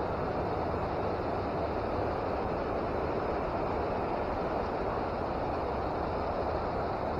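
Steady rushing of flowing spring-creek water, an even noise with no breaks.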